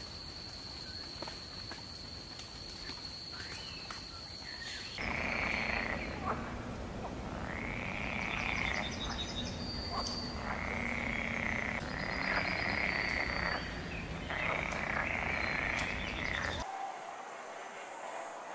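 Wildlife ambience: a high steady buzz, then from about five seconds in five croaking calls in a row, each a second or so long. The background changes abruptly near the end.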